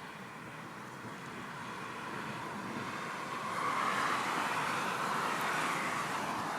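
Car tyre and road noise, a steady hiss that swells louder about three and a half seconds in and holds there.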